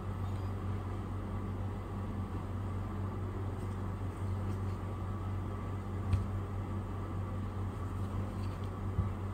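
Steady low hum of background room noise with a light hiss, and a faint click about six seconds in.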